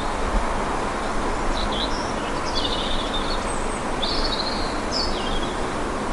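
Outdoor ambience: a steady rushing noise bed with a small bird chirping short phrases about four times.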